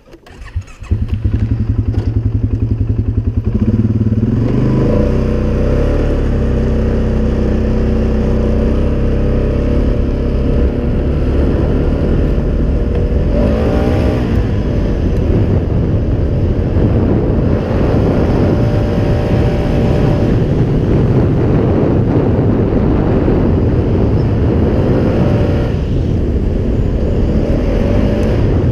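Polaris Sportsman 570 ATV's single-cylinder engine pulling away hard about a second in and running under load on a trail ride, its revs rising and falling with the throttle through a CVT fitted with an EPI clutch kit.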